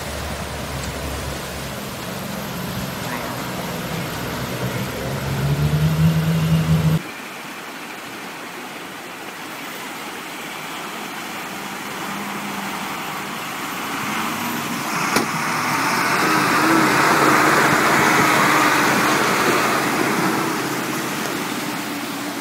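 A dump truck's engine running as it drives through fast floodwater. Its note swells and gets louder before it cuts off suddenly about seven seconds in. After that, water rushes and splashes as a Kamaz truck wades a river, the engine running beneath, and the rushing grows louder in the second half.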